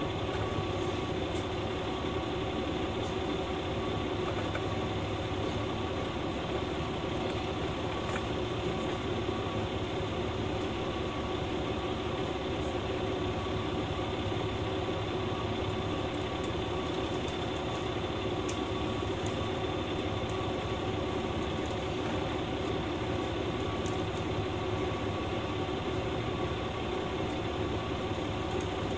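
KiHa 120 diesel railcar standing at a station with its engine idling steadily, the train held while it waits to pass another train.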